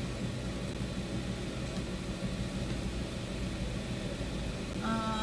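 Steady low hum of background room noise, with no distinct handling sounds; a short held tone starts near the end.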